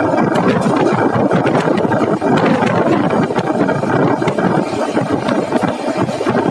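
11302 Udyan Express passenger train running along the track: a loud, steady rumble and rattle of the coach on the rails, with scattered faint clicks.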